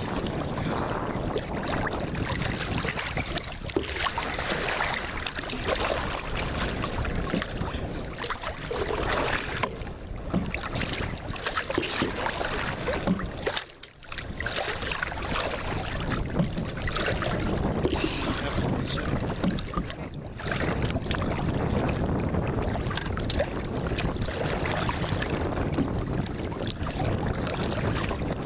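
Water and wind noise from a tandem kayak out on the water, with wind buffeting the microphone. The noise is steady, with small splashes and knocks throughout, and drops away briefly about halfway through.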